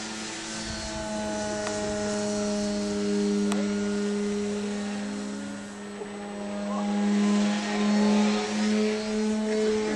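Radio-controlled electric model airplane in flight, its motor and propeller making a steady whine that wavers slightly in pitch and grows louder in the second half.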